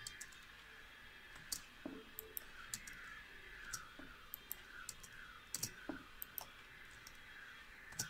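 A run of faint, sharp clicks, a dozen or so at irregular intervals, like button presses, over low hiss.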